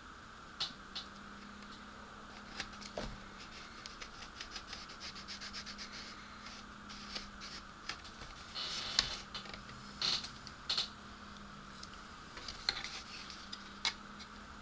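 Small clicks, taps and light scratching from fingers handling and pressing on a plastic model-kit panel with a perforated mesh screen taped to it. A quick run of faint ticks comes in the middle, then a few sharper clicks. A faint steady hum runs underneath.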